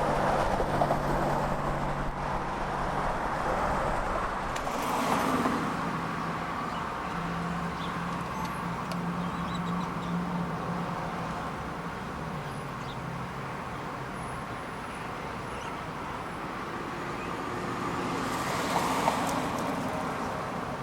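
Road traffic: a steady wash of passing cars with a low engine hum. Vehicles swell past about five seconds in and again near the end.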